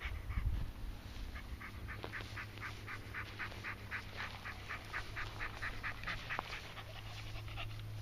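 Dog panting steadily, about four quick breaths a second, over a low steady hum.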